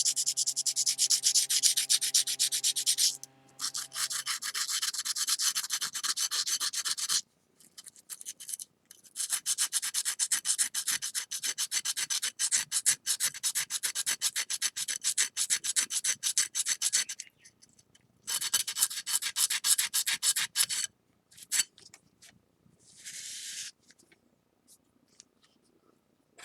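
Wet 240-grit sandpaper rubbed rapidly back and forth over the lacquer-filled crack of a ceramic plate, taking off the excess urushi, in three long runs of fast, even strokes with short pauses. Near the end come only a few scattered short scrapes and taps.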